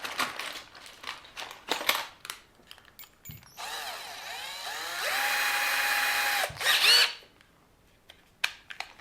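Clicks and rattles of small tool parts being handled, then a power drill runs for about three seconds, its whine rising as it spins up, holding steady and stopping, followed by a couple of knocks.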